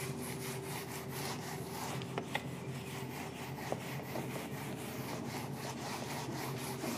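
Handheld whiteboard eraser wiping marker writing off a whiteboard, faint rhythmic rubbing strokes back and forth, with a couple of small knocks a little after two seconds in.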